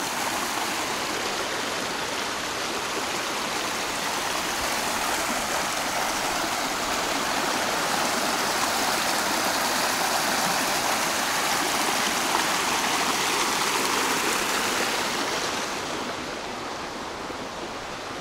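Shallow, rocky stream rushing over stones, a steady rush of water that grows louder past the middle and then fades near the end.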